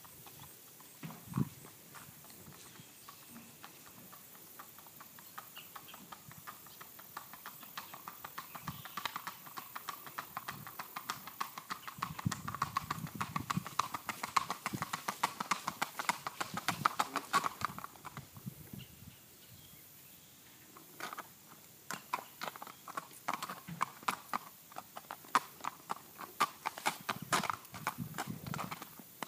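Hoofbeats of a gaited sorrel horse moving in a quick, even rhythm of sharp clicks. They drop away briefly about two-thirds of the way through, then start again.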